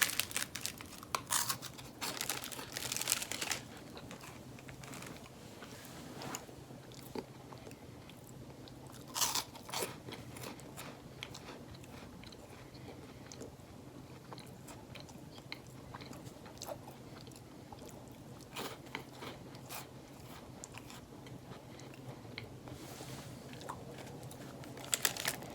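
A person biting into and chewing crisp chocolate wafer cookies with a coconut cream filling, crunching sharply in the first few seconds and again about nine seconds in, then chewing more quietly.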